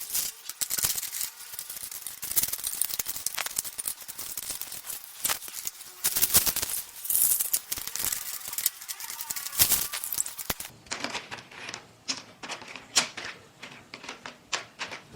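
Ceramic filter rings rattling and clinking against each other as they are rinsed. The clatter is busy and continuous until about ten seconds in, then thins to scattered clicks.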